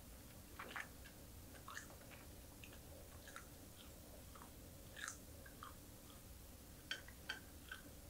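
Faint close-up chewing and mouth sounds of someone eating small anchovies, with soft crisp clicks scattered throughout and a few sharper clicks about seven seconds in.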